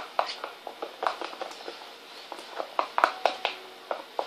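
Irregular wet, sticky clicks and squelches of homemade glue slime being mixed by hand as it starts to set.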